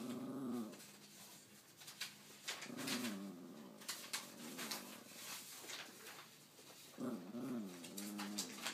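Small terrier-mix dog making faint whining, moaning vocalizations that rise and fall in pitch. They come in three bouts: one at the start, a short one about three seconds in, and a longer one near the end.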